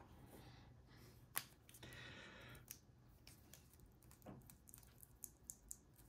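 Faint crinkles and clicks of a thin aluminium beer-can shim being folded by hand, with one sharper click about a second and a half in and a short rustle just after.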